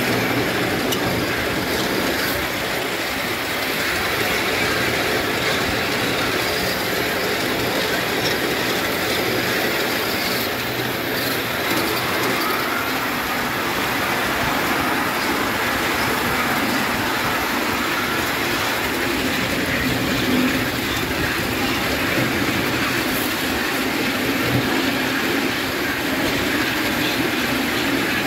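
5-inch gauge coal-fired live steam model of a Britannia locomotive running steadily along a miniature railway track, with the locomotive and the riding car's wheels running on the rails.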